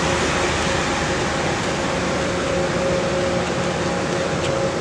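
A steady rushing noise with a constant machine-like hum of a few held tones underneath, unchanging throughout.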